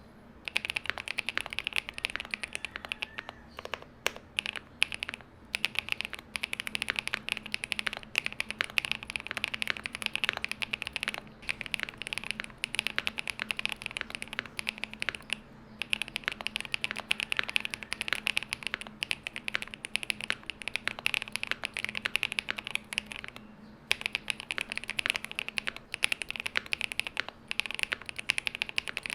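Fast, continuous typing on a modded MonsGeek M1 V3 mechanical keyboard with factory-lubed Green Fog linear switches, doubleshot PBT keycaps, a polycarbonate plate and foam-filled case. The typing pauses briefly a few times.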